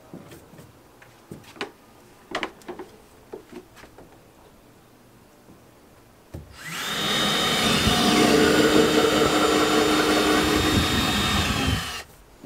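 Power drill boring a mounting hole through a canoe hull. A few light taps and clicks of handling come first. About six seconds in the drill starts and runs steadily with a high whine for about five seconds, its pitch dropping as it winds down and stops.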